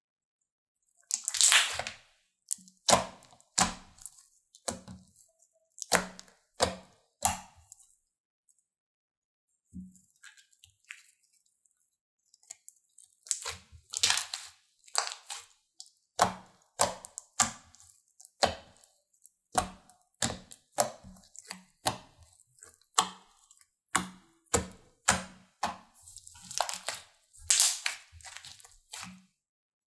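Glitter slime being squeezed and pressed by hand, giving off irregular sharp pops and crackles as trapped air bursts out of it. The pops pause for a few seconds about a third of the way in, then come thickly again.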